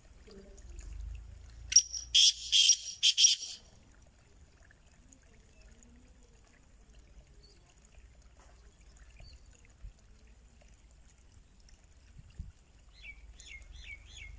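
Black francolin calling: a short burst of about five loud, harsh notes about two seconds in. Near the end a smaller bird gives a quick run of faint chirps.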